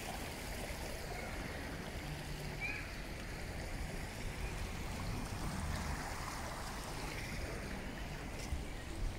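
Shallow, clear city stream flowing over its stony bed: a steady murmur of running water.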